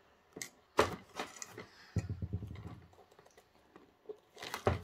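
A cardboard model-kit box being slit open with a utility knife, then its end flap worked loose by hand. It makes a series of sharp clicks and short scrapes of blade and fingers on cardboard, with one strong click about a second in and the loudest cluster near the end.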